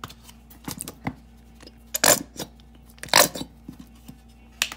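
Mustard squeeze bottle squirting into a bowl of milk and eggs: a few short, sputtering squirts, the two loudest about two and three seconds in, with small clicks of handling between them.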